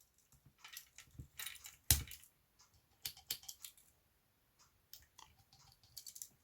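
Victorinox Explorer Swiss Army knife's small scissors being opened and worked: a series of light, scattered metallic clicks and snips, with one sharper click about two seconds in.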